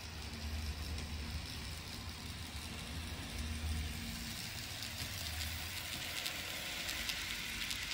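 N scale model diesel locomotives running past with a hopper train: a low electric motor hum that swells and fades, over a hiss of wheels rolling on the track. The hiss grows near the end, with light rapid clicking as the cars pass close.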